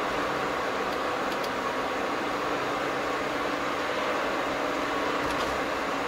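Steady engine and road noise heard inside a car's cabin while driving at a constant speed, with a couple of faint ticks.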